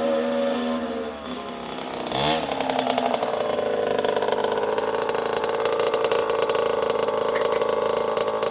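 Kawasaki KX60 kids' dirt bike's small two-stroke engine running as it rides up, with a quick rev that rises and falls about two seconds in, then idling steadily.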